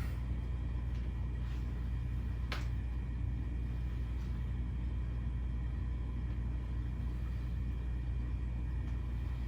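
Steady low hum of room noise, with one faint click about two and a half seconds in.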